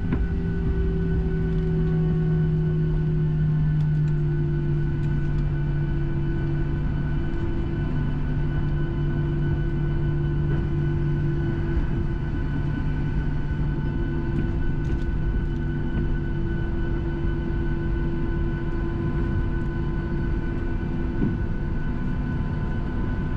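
Boeing 737 engines heard from inside the cabin during the landing roll: their hum falls in pitch over the first few seconds as they spool down from full reverse thrust, then holds steady over a continuous low rumble.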